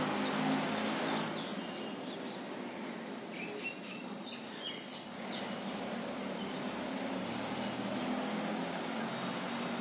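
Crayon scratching on paper as a green crayon colours and outlines a drawing. The scratching stops for a few seconds in the middle, when a few short high bird chirps are heard, then resumes.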